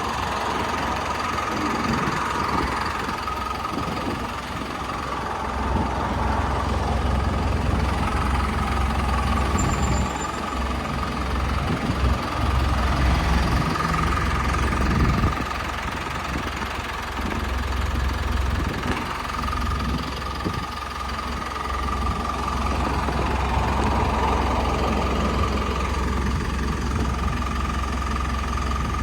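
Diesel engine of a Hyundai HD78 refrigerated truck running steadily at idle, a low drone with a steady whine above it.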